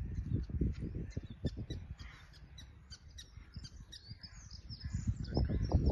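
Birds chirping and calling, with short gliding notes that are busiest near the end, over an irregular low rumble and thumping that eases off in the middle and builds again near the end.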